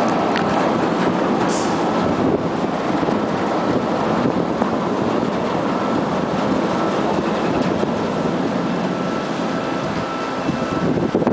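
Car ferry Shirashima's engines and propellers running with a steady, loud rumble and a faint steady whine above it.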